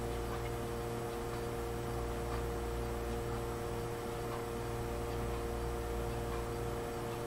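Steady electrical hum with a few faint ticks every second or two.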